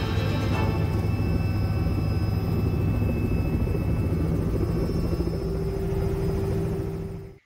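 Robinson R66 helicopter's Rolls-Royce RR300 turbine and rotor running steadily, heard from inside the cockpit, with music fading out in the first second. A steady mid-pitched tone joins about five seconds in, and the sound cuts off suddenly near the end.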